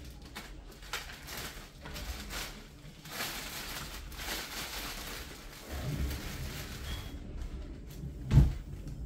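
Plastic wrap and cardboard rustling as a young fruit tree is worked out of its shipping box, with a few soft knocks and a single heavy thump near the end.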